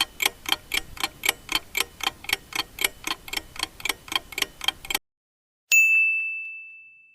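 Countdown timer sound effect: a clock ticking rapidly, about four ticks a second, which stops about five seconds in. A bright bell ding follows, ringing and fading away, signalling that the time to choose is up.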